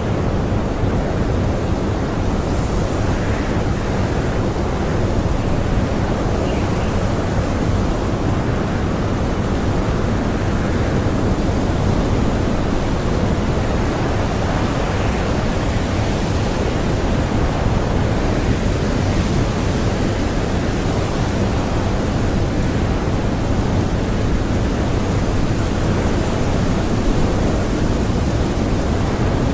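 Blizzard wind blowing hard, a steady rushing noise heavy in the low end with no breaks or separate sounds.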